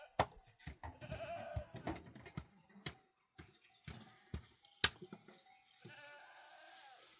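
Small livestock bleating, one call about a second in and a longer one near the end, with sharp clicks and knocks scattered through.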